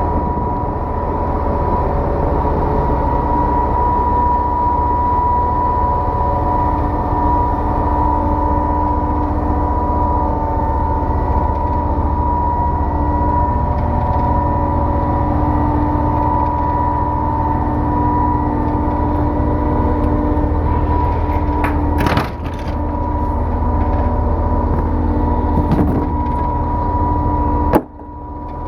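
2006 Putzmeister 32Z truck-mounted concrete pump running with a steady engine drone. A sharp knock comes about three quarters of the way through, and the sound drops off abruptly just before the end.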